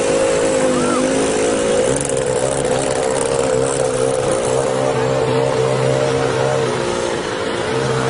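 Small motorcycle engine running at a steady, slightly wavering pitch over a continuous hiss.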